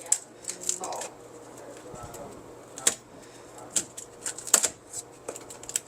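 Sparse light clicks and taps, about eight to ten spread irregularly, with faint muffled voices in the background.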